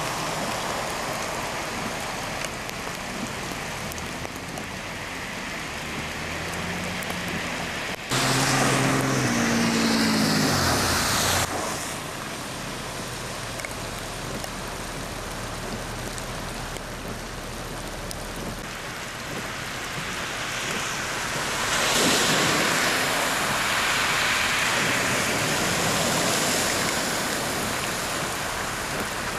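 Heavy rain falling on a flooded street, with vehicles driving through standing water and their tyres throwing up spray. About eight seconds in, a vehicle engine passes close for about three seconds, its note falling. Near the end comes a louder, swelling rush of spray as another vehicle ploughs through the ponded water.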